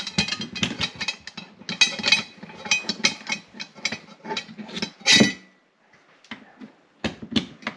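Steel rifle parts being worked apart by hand: a quick run of metallic clicks, clinks and rattles as the bolt assembly is slid out, going quiet for about a second and a half near the end before a few more clicks.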